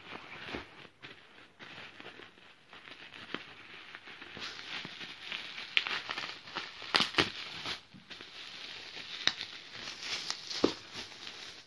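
Plastic bubble wrap crinkling and rustling as hands handle and unwrap it, with scattered sharp snaps, several of them loud in the second half.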